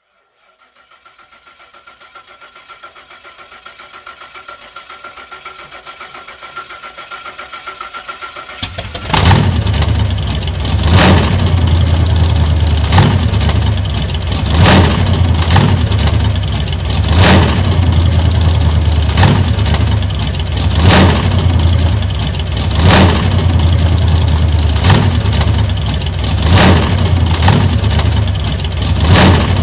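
1940s car engine cranking on the starter with rapid, growing pulses, then catching about nine seconds in and running loudly, surging about every two seconds.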